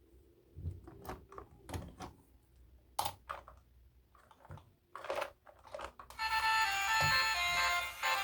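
Scattered clicks, taps and crinkles of toy packaging being handled. About six seconds in, music with a melody starts and runs on, louder than the handling.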